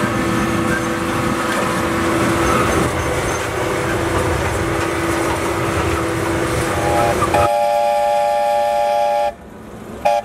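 Train running noise, a steady rumble, then about seven and a half seconds in a locomotive's chime whistle blows a chord of several notes, breaks off for a moment near the end, and sounds again.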